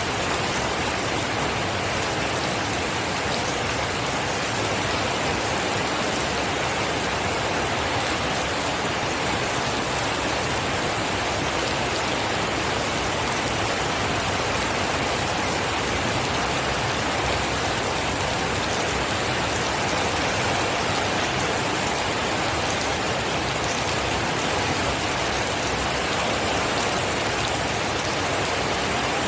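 Steady rain falling, an even hiss of many drops on surfaces with no change in intensity.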